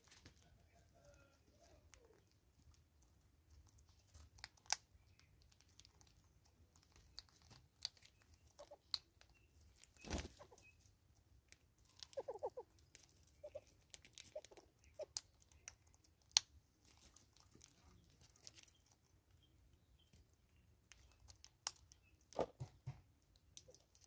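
Southern yellow-billed hornbills and bush squirrels feeding at a seed jar: scattered sharp clicks and taps of bills picking at seed against the jar, with a duller knock about ten seconds in. A few short clucking calls come around twelve to thirteen seconds.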